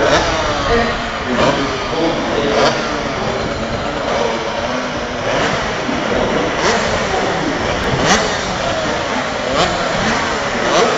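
Several racing motorcycles passing on the circuit, their engines revving, the pitch rising and falling as each one goes by. A few short sharp knocks stand out now and then.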